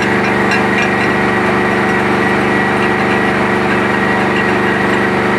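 An engine running steadily with an even hum and a faint regular ticking.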